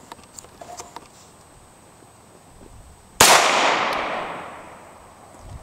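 A single shot from a Beretta semi-automatic pistol about three seconds in: one sharp crack whose echo dies away over about two seconds.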